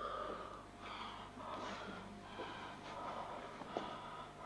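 A man gasping and panting for breath in quick, repeated breaths, as during a fit of pain or breathlessness.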